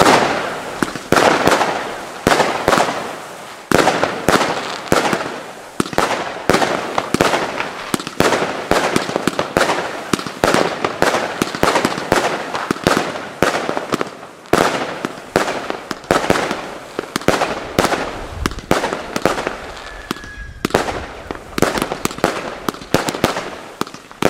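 Category 2 consumer firework pots (Lesli Royal Class Royal Redhead) firing in a chain: repeated loud bangs every second or two with dense crackling between them.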